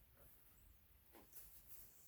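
Near silence: room tone, with a couple of faint, soft handling sounds about a second in.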